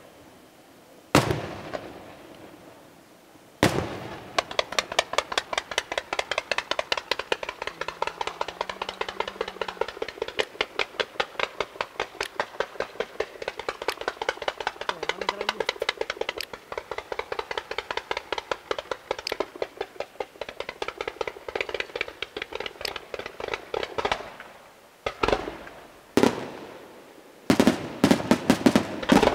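Aerial fireworks display: two single bangs, then a rapid barrage of shots, several a second, for about twenty seconds. After a short pause come two more bangs, and another fast barrage starts near the end.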